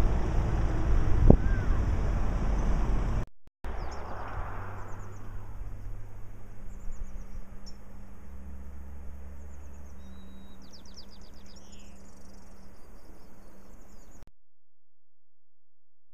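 Wind rumbling on the microphone with a brief bump. After a cut, quieter outdoor wind noise with a low steady hum, while small birds in the coastal scrub chirp in repeated short trills. The sound then cuts to silence near the end.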